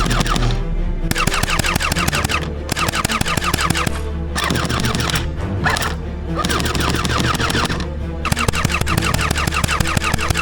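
Rapid automatic gunfire in a string of bursts with short breaks between them, over music with a steady bass.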